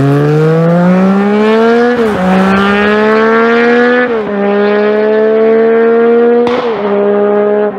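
Yamaha MT-09 / FZ-09 inline three-cylinder engine through an aftermarket exhaust, accelerating hard away through the gears. The note climbs steadily in pitch, with three quick upshifts about two, four and six and a half seconds in, and a sharp crack at the last shift.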